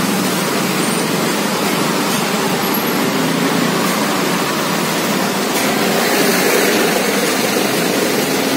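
Steady, loud background noise of roadside traffic, an even hiss-like rush with no distinct events.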